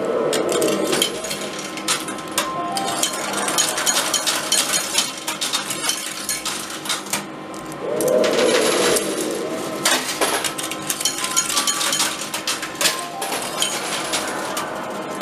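Coins clinking in a coin pusher arcade machine: many small metallic clicks as coins are dropped in and jostle on the sliding pusher shelf. Two short louder swells come near the start and again about eight seconds in.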